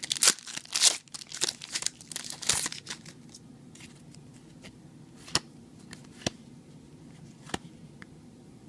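Foil trading-card booster pack wrapper being torn open and crinkled for about the first three seconds, then a few separate sharp clicks.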